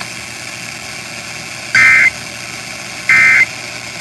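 Emergency Alert System end-of-message data bursts received over a radio broadcast: two short, buzzy digital screeches about 1.3 seconds apart, part of the three-burst code that closes an EAS test. Steady radio hiss lies underneath.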